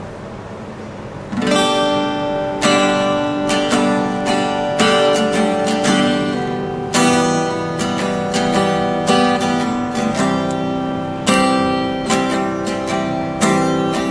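Acoustic guitar strummed in chords, starting about a second and a half in, with strong strokes roughly every second and lighter strums between.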